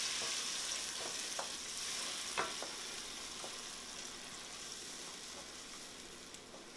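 Tomato sauce with rendered guanciale sizzling in a skillet as a wooden spoon stirs it, with a few light knocks of the spoon against the pan. The sizzle slowly dies down.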